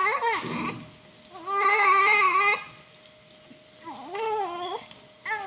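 Newborn baby crying in repeated wails: a short cry at the start, a longer one in the middle, another about four seconds in, and a new one starting near the end.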